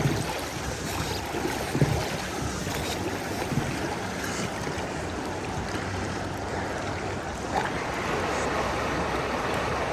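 Steady rush of river water, with a few light knocks.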